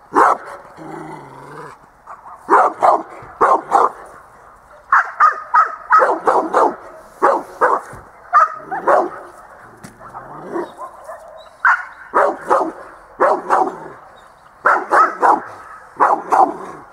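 Rottweiler barking at a helper during protection training, in quick clusters of two to four loud barks with short pauses between them.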